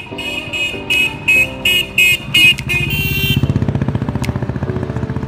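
A vehicle horn beeps about eight times in quick succession. Then, about three seconds in, a motorcycle engine runs close by with a low, buzzing pulse.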